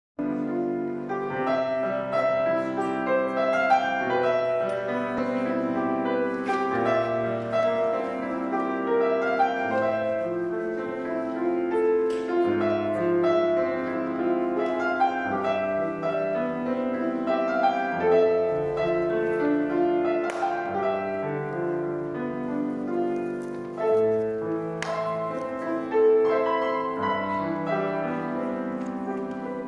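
Grand piano playing a solo concert piece, with held chords and a few sharper accented notes standing out.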